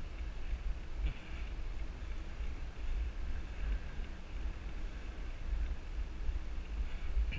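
Wind buffeting a GoPro's microphone on a moving bicycle, a steady low rumble with a faint hiss of tyres and ride noise. There is a light knock from the bike about a second in and another near the end.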